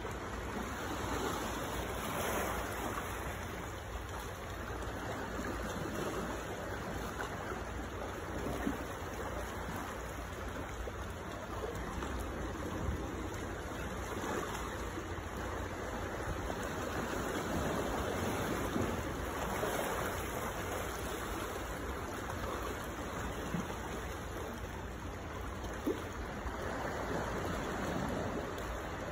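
Sea water washing among shoreline boulders at the foot of a cliff, a steady rush that swells and eases every few seconds. A few brief knocks stand out here and there.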